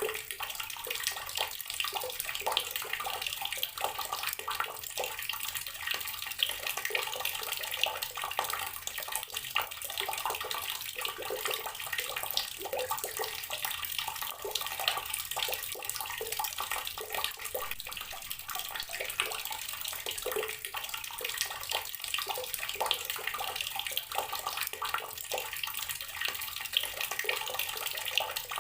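Water running steadily from an outdoor tap, splashing in an even, continuous stream.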